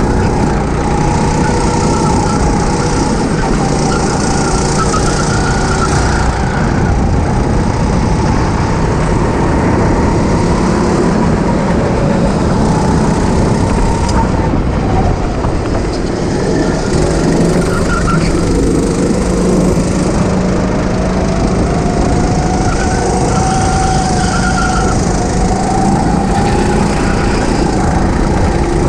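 Go-kart engine running hard, a steady loud whine whose pitch slowly rises and falls as the revs change, dropping about halfway through and climbing again.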